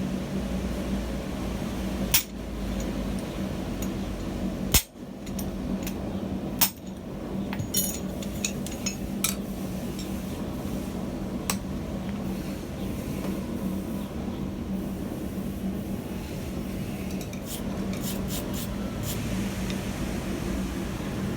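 Scattered single hammer strikes and clinks of steel on steel at the anvil, about a dozen spread out with a quick cluster near the end, over a steady low hum.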